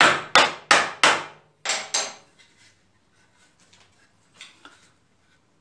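Hammer blows driving a wooden piece into a tight interlocking joint: about six sharp strikes in the first two seconds, then a couple of faint knocks as the wood pieces are handled.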